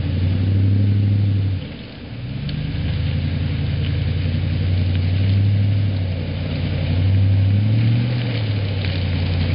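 Toyota Tundra pickup's engine running at low revs as the truck creeps along a muddy trail. The note dips briefly about two seconds in and lifts slightly in pitch near the end.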